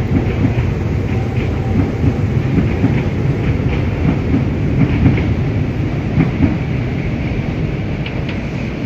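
Keihan 800-series train running on the Keishin Line: a heavy, steady rumble of wheels on rails with irregular sharp clicks, easing slightly near the end.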